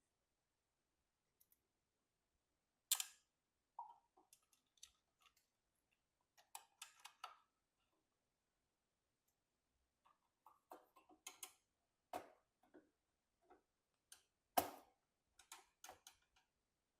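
Screwdriver and small screws clicking, tapping and scraping against the metal PC case and motherboard standoffs while the board is screwed in, in irregular clusters with two sharper clicks about 3 and 14.5 seconds in.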